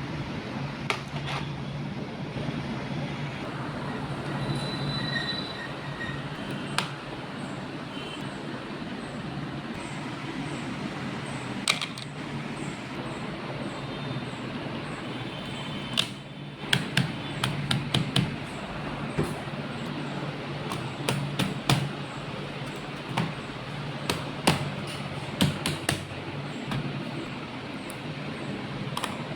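Steady background noise with a low hum, broken by scattered sharp clicks and taps, thickest in the second half.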